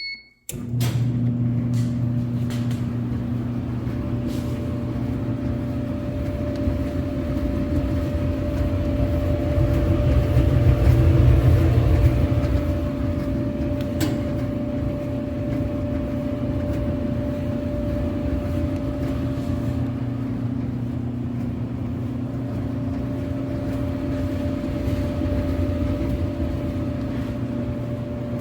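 Whirlpool clothes dryer starting up: a short beep, then the motor starts and the drum turns with a steady, loud hum and rumble.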